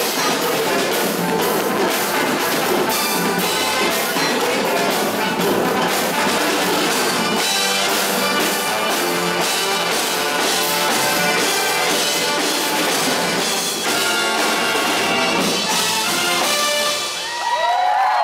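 Live brass section of trumpets and trombones playing an upbeat number over a drum kit with a steady beat. Near the end the music stops and the audience begins whistling and cheering.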